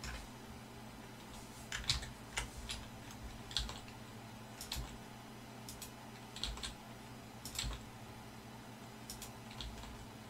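Irregular, scattered clicks from a computer keyboard and mouse, over a faint steady hum.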